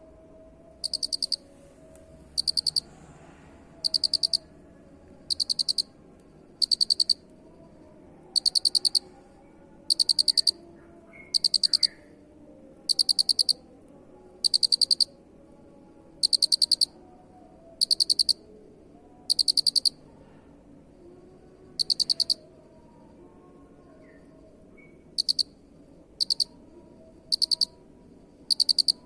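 A cricket chirping: shrill half-second trains of rapid pulses, repeated about every second and a half, with a couple of longer pauses in the second half.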